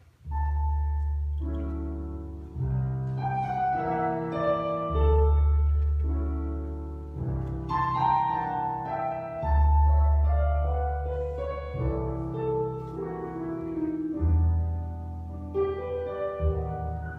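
Piano playing an instrumental introduction: a flowing melody over deep bass notes held about two seconds each.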